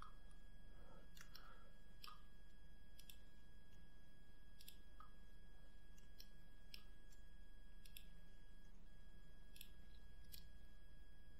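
Faint, irregular computer mouse and keyboard clicks, about a dozen, as vertices are selected and moved, over a steady low electrical hum.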